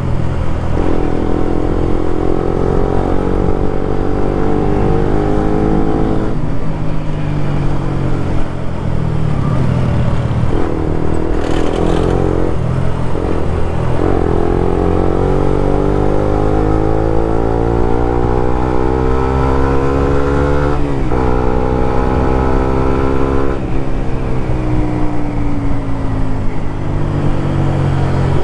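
Suzuki GSX-R150's single-cylinder engine through a Prospeed Black CNC full-system aftermarket exhaust, ridden on the road. The revs climb in several pulls, each broken by a sudden drop at a gear change, and the pitch falls off near the end as the bike slows.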